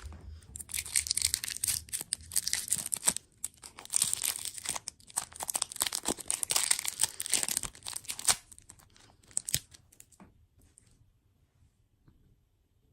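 Dessert wrapper or packaging being crinkled and torn close to the microphone, in dense crackling bursts for about eight seconds. A few scattered clicks follow before it dies away near the end.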